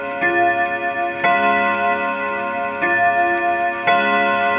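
1930s Junghans Württemberg wall clock striking bim-bam: two hammers take turns hitting two gong rods, giving four strikes in two pairs of a higher and a lower tone. Each tone rings on beneath the next.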